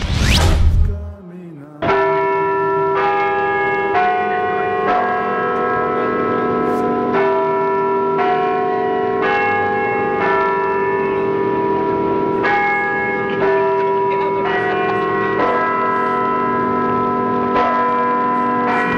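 A short whoosh, then church bells ringing: several pitched bells struck about once a second, each note ringing on under the next.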